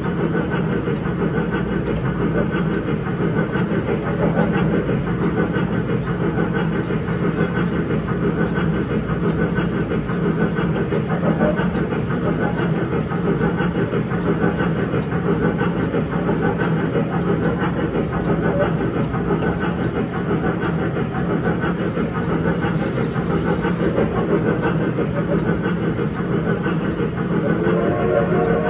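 Electric mall train running, a steady rumble of the ride mixed with its train sound effects. A rising pitched tone, like the start of its horn or whistle effect, begins near the end.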